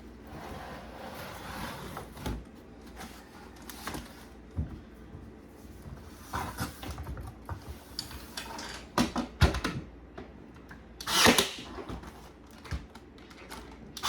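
Small wooden trim pieces being handled and fitted onto a painted wooden hutch: scattered light clicks, taps and knocks, with a louder brief scrape about eleven seconds in.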